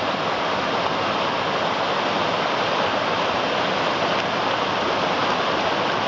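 Small waterfall and creek rapids rushing steadily: a dense, even hiss of falling and tumbling water.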